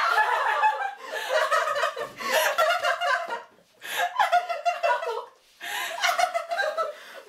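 A young woman laughing hard in about four long bouts, with brief pauses between them.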